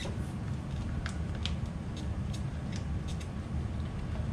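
A handful of light, sharp clicks and taps as hands work the plastic parts of an RC truck, fitting a battery into it, over a steady low hum.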